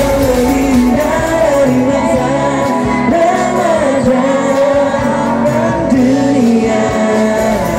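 Pop song with a voice singing long, held notes over a band accompaniment.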